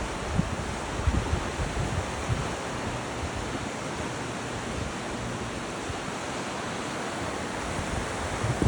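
River water rushing steadily beneath a footbridge, a dense even roar of flowing water. Low thumps of wind on the microphone come in over the first couple of seconds.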